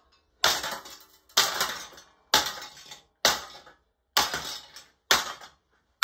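A white HPM ceiling fan's motor housing and blades being struck hard six times, about once a second, each blow a sharp crack followed by a short rattle of plastic and metal as the fan is smashed apart.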